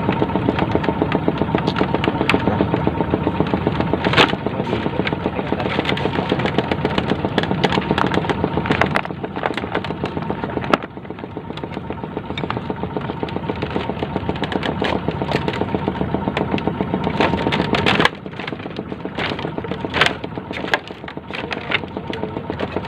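A small engine running steadily, with repeated sharp knocks and cracks of wood through it, a few of them louder.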